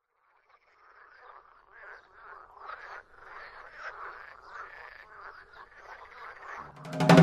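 A chorus of many frogs croaking, fading in about half a second in and growing louder. Near the end a low droning note of music comes in, followed by a sharp loud hit.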